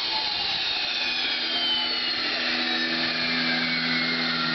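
PBS TJ-100 small turbojet spooling down after shutdown: several high whining tones fall steadily in pitch over a hiss of rushing air. A steady low hum joins about a second and a half in.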